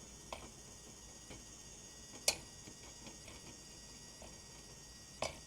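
Maticoopx automatic chicken coop door's drive motor running with a faint high whine, broken by sharp clicks every two to three seconds and lighter ticks in between, which the owner takes for the gearing skipping a gear as the door closes.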